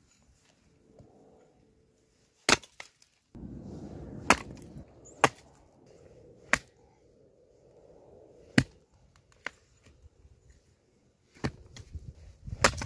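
Wood being chopped by hand: about six sharp blows at uneven gaps of one to four seconds, with lower rustling and handling noise between them.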